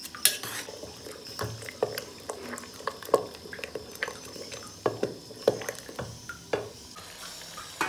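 A spoon stirring and mashing cooked dry jute leaves in a pressure cooker pot, knocking and scraping irregularly against the pot's sides and bottom.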